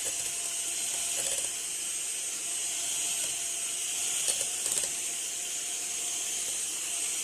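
Electric hand mixer running steadily at low speed, beating the cream cheese filling, with a few faint knocks of the beaters against the bowl.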